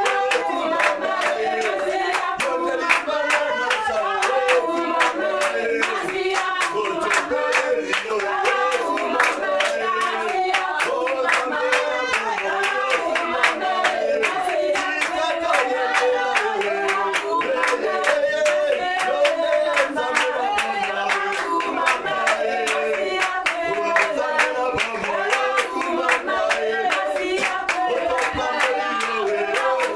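A church congregation singing a worship song together while clapping along in a steady rhythm.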